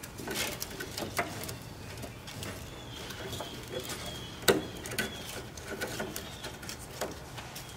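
Scattered light clicks and knocks of plastic wiring-harness connectors being handled under a car, the loudest knock about four and a half seconds in.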